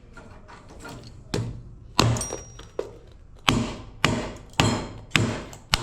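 A hatchet chopping into an LED retrofit lamp to break it apart: about eight sharp strikes, coming roughly two a second, each with a short ringing tail.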